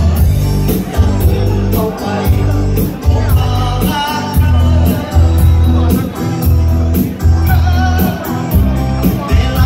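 Loud line-dance music with a steady, driving beat and a singing voice, played over a hall's loudspeakers for the dancers.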